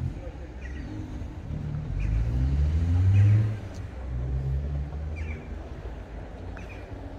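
A motor vehicle's engine accelerating close by, rising in pitch and getting louder to a peak about three seconds in, then dropping back to a steadier, lower run.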